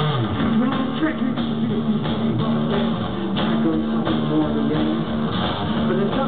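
Live rock music led by a guitar playing sustained chords at a steady level.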